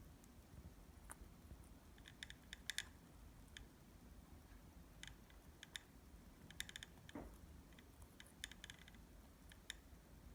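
Faint, sharp little clicks in scattered clusters of a few at a time: a parrotlet's beak nibbling at strawberry.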